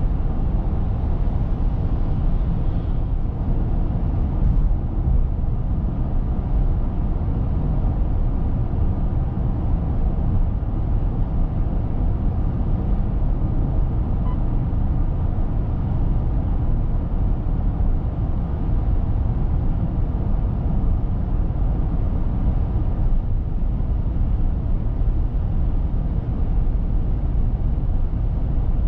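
Cabin noise of a Mitsubishi Eclipse Cross PHEV cruising at expressway speed: a steady low rumble of road and tyre noise.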